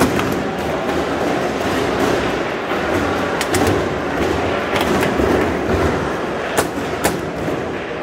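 Foosball table in play: a few sharp clacks of the ball being struck by the players on the rods and knocking against the table, over a steady background din.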